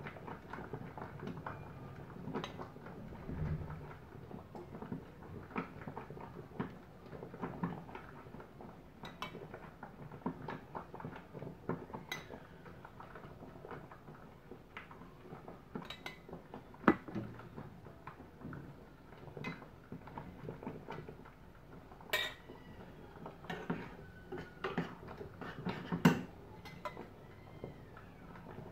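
A metal spoon clinking and scraping against a small metal bowl as syrup is scooped out, in scattered light taps; two sharper clinks stand out, one a little past the middle and one near the end.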